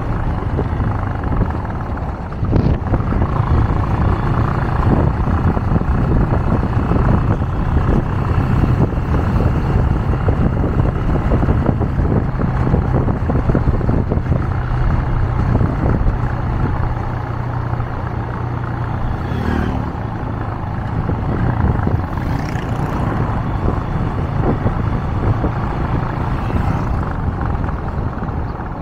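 Motorcycle engine running steadily while riding along at cruising speed.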